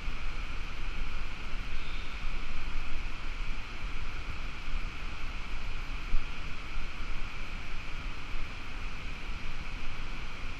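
Steady rushing water noise with a low rumble, rising and falling irregularly.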